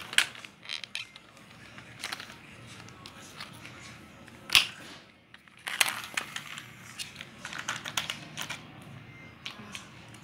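Plastic toy trucks being handled and set down: scattered clicks and knocks of plastic parts, the loudest about four and a half and six seconds in.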